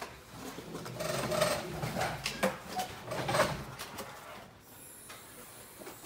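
Irregular rubbing and handling noise with snatches of indistinct voices in a small room, mostly in the first half and quieter after about four seconds.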